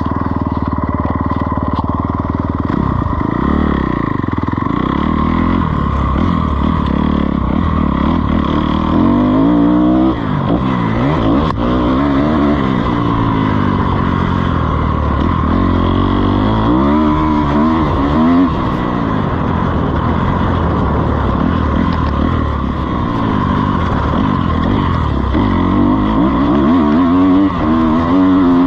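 Motocross dirt bike engine running hard, its pitch climbing and dropping every few seconds as the throttle opens and closes.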